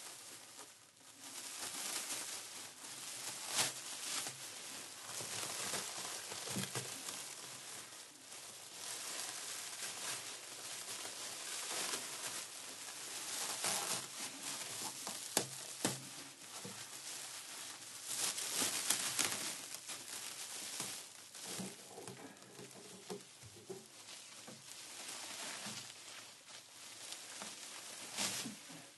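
Plastic sheeting crinkling and rustling irregularly, with sharper crackles now and then.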